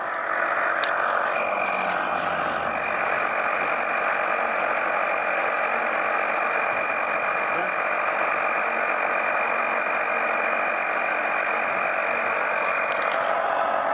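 Steady hiss of compressed air blowing through a homemade smoke leak tester into the engine's intake, with a thin high whistle that starts with a click about a second in and stops with another click near the end.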